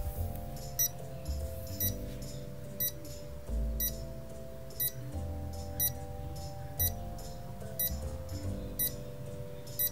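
Countdown timer ticking once a second, about ten ticks, counting down the time to answer a quiz question, over soft background music.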